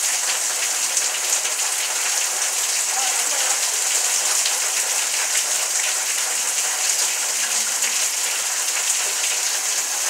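Heavy tropical rain from a passing hurricane's outer bands pouring steadily onto surfaces, a dense, even hiss with the patter of individual drops.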